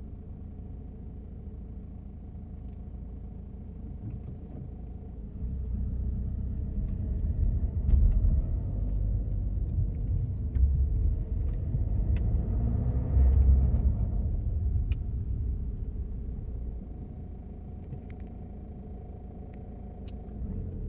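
Vehicle running with a low rumble that swells from about six seconds in and eases off after about fifteen, an engine note gliding in pitch in the middle. Light scattered ticks ride on top: the cockpit rattling from vibration.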